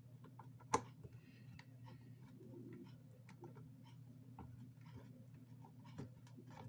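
Screwdriver turning the screws into the plastic housing of a Divoom Voombox Power speaker: quiet, irregular small clicks and ticks, with one sharper click under a second in. A faint steady low hum lies underneath.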